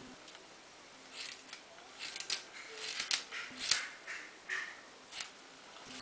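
Scissors snipping through the braided weave hair, a run of short, irregular snips as the weave is hacked off.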